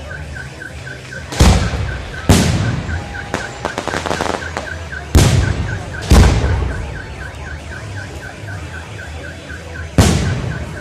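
Aerial fireworks shells bursting overhead: five loud bangs, about one and a half, two and a half, five, six and ten seconds in, each trailing off with an echo, with a patter of crackles around four seconds. Behind them a high chirp repeats steadily about three times a second.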